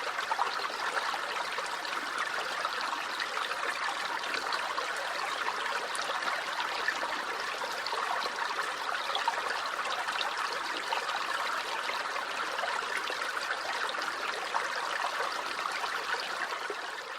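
Small creek flowing steadily over stones, a continuous babbling and trickling of water.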